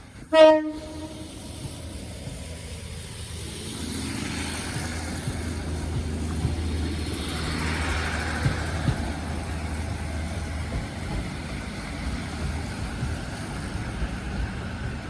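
A train horn gives one short, loud blast about half a second in. Then a passing train's running noise builds from about four seconds and continues steadily, with a low hum underneath.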